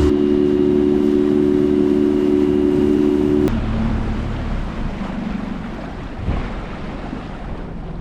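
Steady hum of a boat motor that cuts off suddenly about three and a half seconds in, giving way to wind on the microphone and the wash of water.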